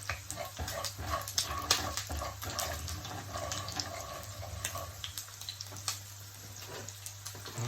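Salmon frying in a pan: a steady sizzle dotted with frequent crackles and pops, over a low steady hum.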